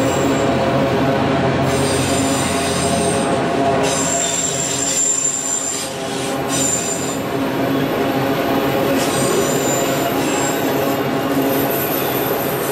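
Freight train of autorack cars rolling past: a steady rumble of steel wheels on the rails, with high-pitched wheel squeal coming and going several times.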